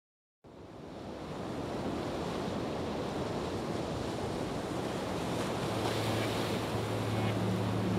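Background soundtrack fading in from silence: a steady rushing wash like surf or wind, with a low steady drone joining about two-thirds of the way through.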